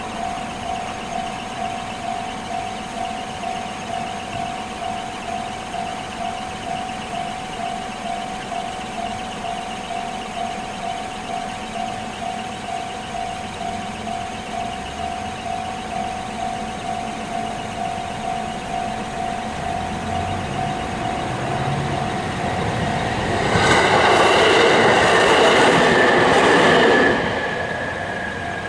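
Japanese level-crossing warning bell ringing its steady, rapidly repeated 'kan-kan' tone. From about 20 seconds in a Hanawa Line train is heard approaching, and it passes over the crossing loudly for about three and a half seconds, drowning the bell, which rings on once the train has gone.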